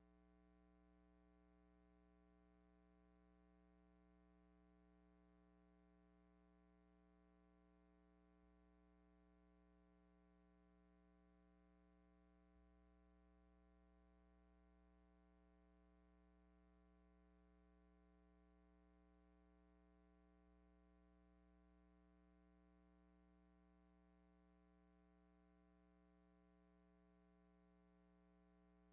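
Near silence: only a faint steady electrical hum on an empty soundtrack.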